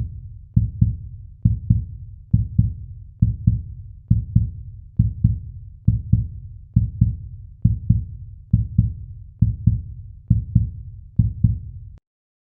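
Heartbeat sound effect: a slow, steady lub-dub, each beat a low double thump, a little over one beat a second. It cuts off suddenly shortly before the end.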